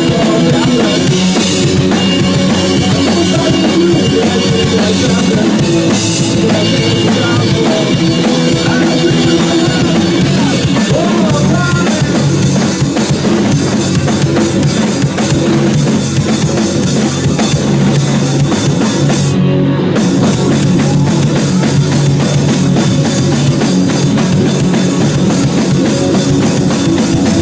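Rock band playing an instrumental stretch with no singing: a full drum kit, with bass drum and snare keeping the beat, under sustained instrument notes. The highest sounds, such as cymbals, drop out for a moment about two-thirds of the way through.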